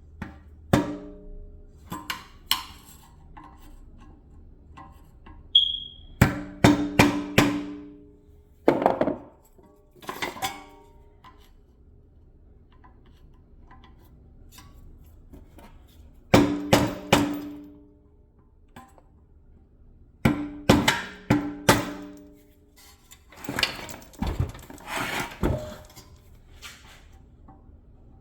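Hammer blows on the metal dust cap of a rear wheel hub, struck in quick groups of three or four with pauses between, each blow ringing. Toward the end comes a rougher scraping stretch as the tool works at the cap's edge; the cap is stuck fast.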